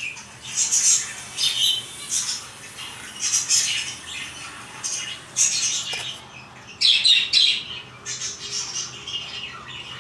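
Lovebirds and finches calling together: repeated shrill squawks and chirps in bursts every second or two.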